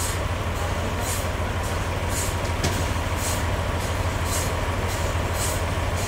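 Toyota 3.5-tonne forklift engine running steadily, with a short hiss repeating about once a second.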